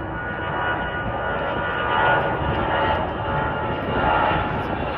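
StarFlyer Airbus A320 jet airliner at takeoff power on its takeoff roll: the twin jet engines make a steady rushing noise with a whine through it as the aircraft accelerates and rotates for liftoff.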